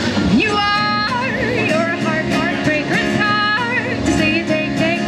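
A woman singing live over her own acoustic guitar, holding several long notes with vibrato.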